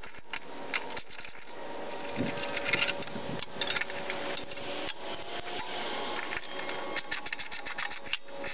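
Ratchet wrench clicking in quick runs of rapid clicks as a socket turns out the 3/8-inch bolts holding the exhaust manifold to a small engine's cylinder head.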